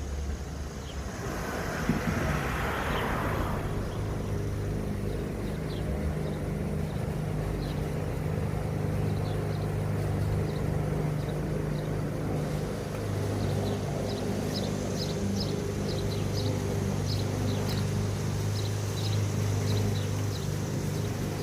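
A vehicle engine idling steadily with a low, even hum. A short hissing rush comes about a second in, and faint light ticks follow in the second half.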